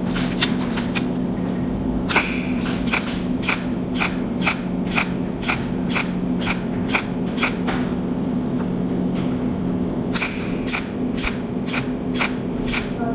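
Cold welding machine firing its pulses: sharp snapping ticks about two a second, in runs with short pauses between, over a steady electrical hum.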